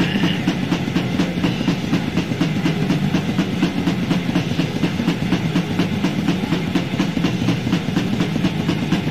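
Instrumental stretch of a death/black metal demo recording: fast, even drumming over distorted electric guitar, with no vocals.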